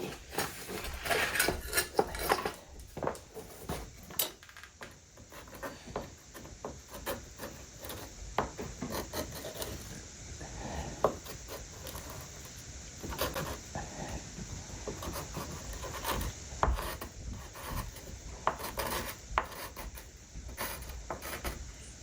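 Veneer hammer being worked over hide-glued crotch mahogany veneer: irregular scraping and rubbing strokes of a tool on wood, with scattered clicks and taps.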